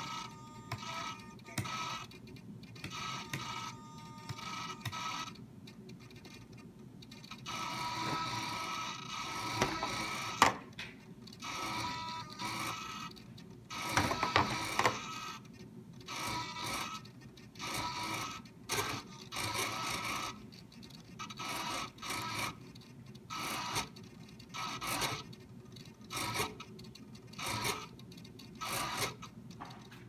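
Blue Bird A10 micro servos whirring in many short, irregular bursts as they swing a model plane's control surface back and forth, with a few sharp clicks.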